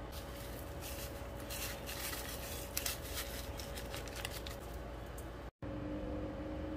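Raw chicken pieces being handled and mixed with garlic-ginger paste and ground spices in a perforated metal colander: irregular soft clicks and rustles over a faint steady hum. The sound breaks off briefly a little over five seconds in.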